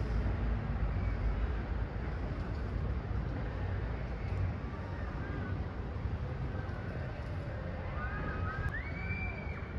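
Outdoor ambience: a steady low rumble like wind on the microphone or distant traffic, with a brief high call that rises and falls near the end.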